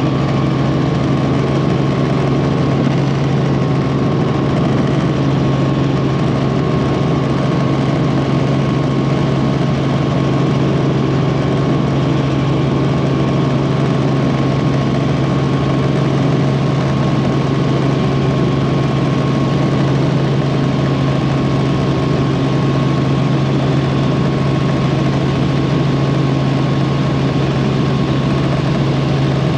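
Helicopter in steady flight, heard from inside the cabin: a constant low drone of rotor and engine with a thin, steady whine above it.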